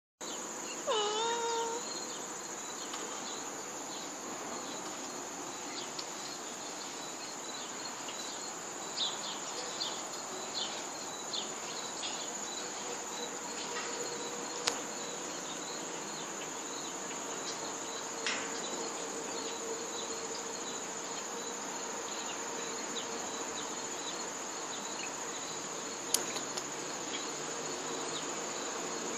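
A steady high-pitched chorus of insects, with a single cat's meow about a second in and a few scattered sharp clicks.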